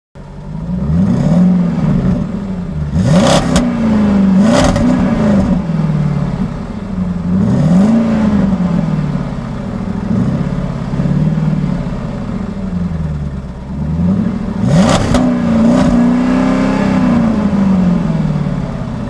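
A car engine revving up and down over and over, its pitch rising and falling every couple of seconds. A few sharp clicks come early on and again near the end.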